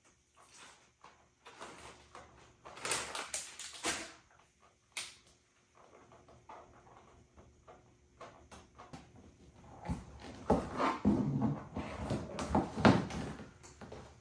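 Crinkling of a foil snack bag about three seconds in, then a run of knocks, scuffs and thumps near the end as high-heeled platform pumps are slipped on and the wearer stands up on a hard floor.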